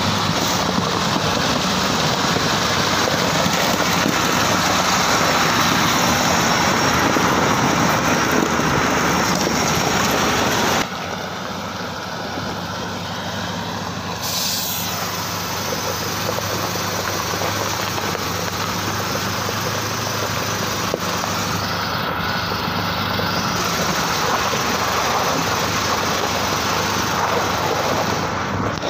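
KAMAZ tanker truck's diesel engine running steadily as the truck drives slowly over broken river ice and snow. The sound drops abruptly about 11 seconds in and then carries on at a lower level.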